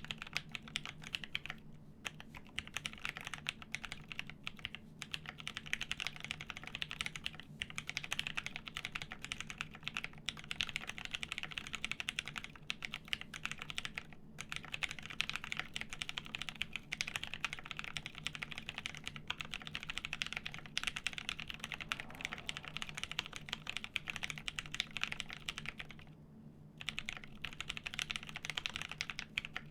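Continuous fast typing on a plateless JER1800 mechanical keyboard with lubed Pewter switches and G81-1800 keycaps: a dense run of keystrokes, broken by a few short pauses, the longest about four-fifths of the way through.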